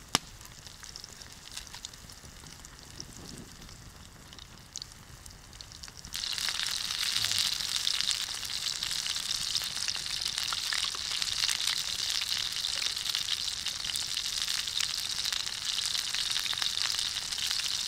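Fish cutlets frying in oil in a frying pan over campfire coals: a steady sizzle with fine crackles. It is faint at first and grows suddenly louder about six seconds in.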